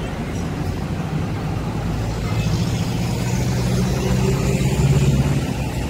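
Low rumble and hum of passing vehicles, road traffic and a slow-moving tram, growing louder to a peak about five seconds in.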